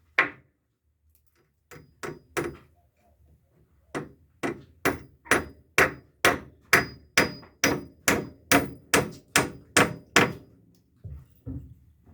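Hammer blows: a single strike, a quick few, then a steady run of about two even blows a second lasting some six seconds, ending with two lighter taps.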